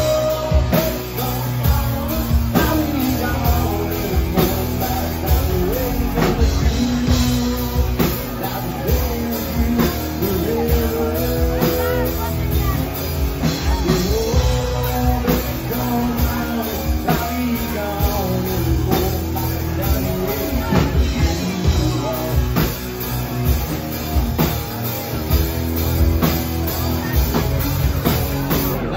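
Live rock band playing: a male lead vocal over two electric guitars and a drum kit, with a steady beat throughout.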